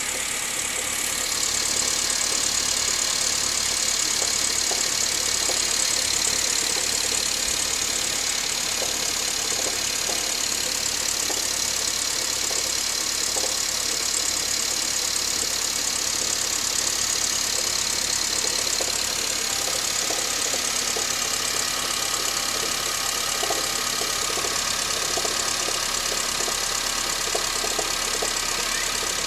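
Honda City L15A 1.5-litre four-cylinder engine idling steadily with a faint knocking mixed in. The owner finds this knock only with the air-con compressor switched off; it goes away once the compressor clutch engages.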